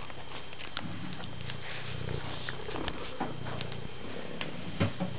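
Domestic cat purring steadily, with small wet clicks of eating from a bowl over it and one sharper knock near the end.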